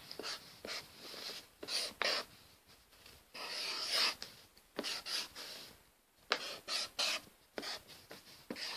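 A pen writing on paper: a series of short scratchy strokes with brief pauses between them, one longer stroke near the middle.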